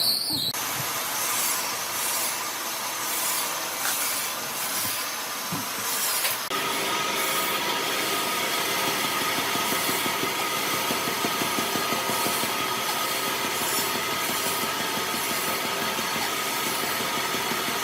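A tool working on wood, giving a rough sawing or rubbing noise that starts suddenly. From about six and a half seconds in it becomes an even, continuous noise with a faint steady whine.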